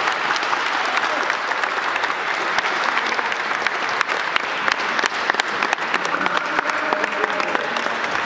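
Many people clapping their hands together in applause, a dense, steady patter of claps.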